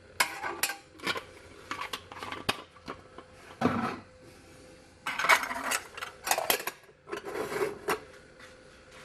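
Handling noises from cookware and an alcohol stove: a series of short metal clinks, knocks and scrapes in several clusters, with quiet stretches between.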